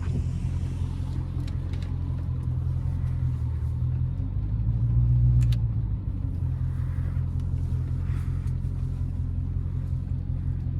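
Dodge Charger Scat Pack's 6.4-litre 392 HEMI V8 running at low speed with a steady low drone. A little past halfway it swells louder for about a second and a half as it takes some throttle, then settles back.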